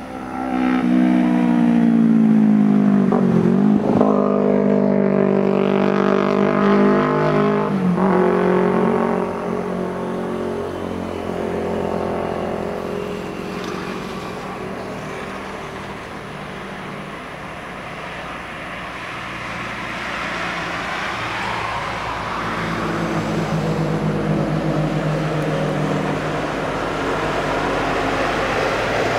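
Heavy diesel coach engines on a highway. One engine is loud in the first eight seconds, its pitch dropping and climbing again twice as it shifts gear. Then tyre and road noise, and another coach engine grows louder as it approaches and passes near the end.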